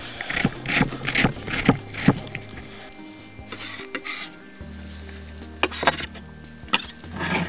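Fresh ginger rasped on a small metal hand grater in quick repeated strokes, then a knife blade scraping and tapping on a wooden cutting board, over background music.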